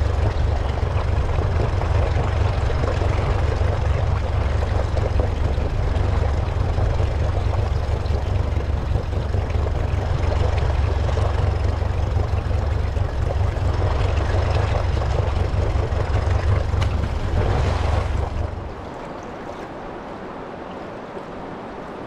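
Wind buffeting the microphone with a heavy low rumble over a rushing hiss of wind and river water on an open boat. About nineteen seconds in it drops abruptly to a much quieter steady hiss.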